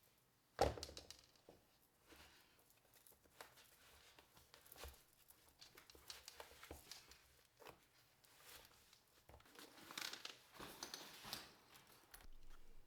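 A sharp knock about half a second in, then soft rustling and crinkling with small scattered clicks, as of things being handled.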